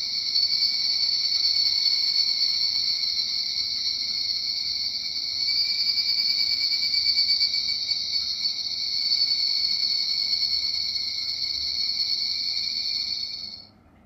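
Recorded call of a higurashi (evening cicada) played through the small speaker of a capsule-toy cicada sound box: one steady high-pitched insect call that swells a little twice and cuts off shortly before the end.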